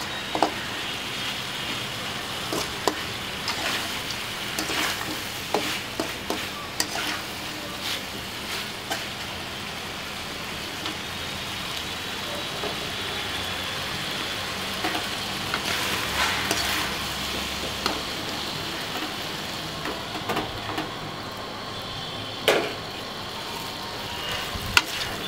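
Chicken frying in a large aluminium kadai with a steady sizzle, while a plastic spatula stirs and scrapes against the pan in irregular clicks. The stirring pauses for several seconds partway through.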